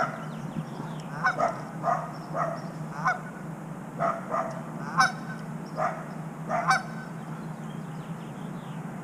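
Geese honking repeatedly, short calls about one or two a second at an uneven pace.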